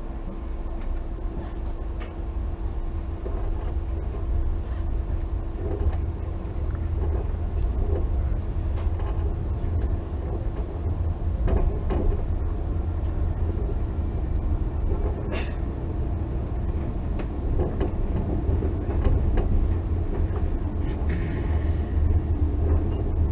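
Metra commuter train pulling away from a station and picking up speed, heard from inside a passenger car: a low rumble of wheels on rail that grows louder, with a few sharp knocks from the track.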